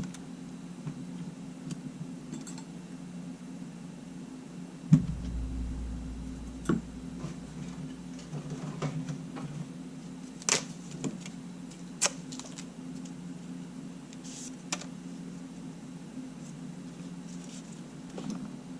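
Scattered small clicks and taps of tools and small camera parts being handled on a workbench, with one sharper knock about five seconds in followed by a brief low rumble. A steady low hum runs underneath.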